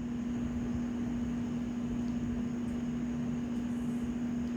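Steady room hum from a running machine, holding one constant low tone over an even hiss.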